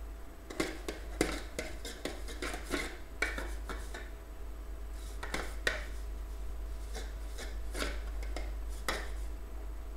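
Pastry brush rubbing butter around the inside of a metal pot, with irregular scrapes and light knocks as the pot is turned in the hand.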